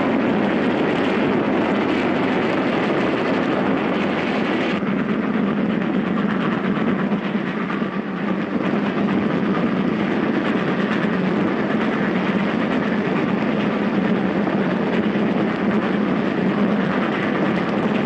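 A moving train giving a steady rumble and rail noise. About five seconds in the sound changes abruptly, its higher tones dropping away as if one recording is cut to another.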